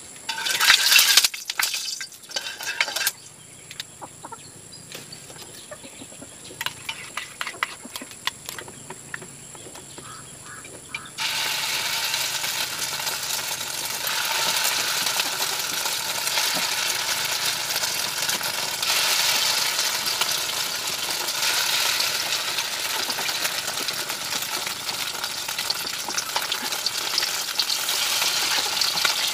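Scattered utensil clinks with a loud clatter near the start. About eleven seconds in, a steady sizzle starts suddenly: beef loaf and egg frying in hot oil in a pan.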